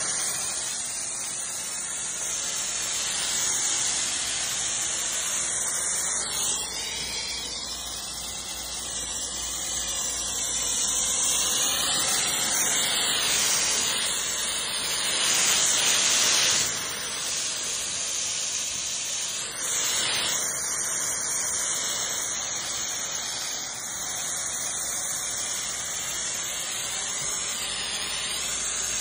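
AR630-TSS pressure washer's high-pressure water jet spraying onto a stainless steel kitchen exhaust hood and plastic sheeting, rinsing off foamed degreaser. A continuous hiss of spray whose tone shifts as the wand sweeps across different surfaces, loudest about halfway through.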